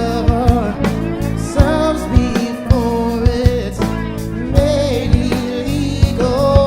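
A rock band playing live: a sung melody held and bending over drum hits, bass and guitar.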